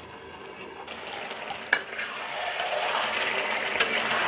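Chicken pieces frying in masala in an aluminium pan on a high gas flame, a steady sizzle that swells and grows louder as the pan is uncovered. Two sharp metal clinks come about a second and a half in, and the spatula stirs and scrapes through the meat.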